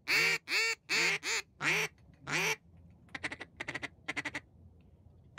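A hand-blown duck call sounding a run of about seven loud quacks, one after another. About three seconds in, a softer run of quick clicking notes follows on the call.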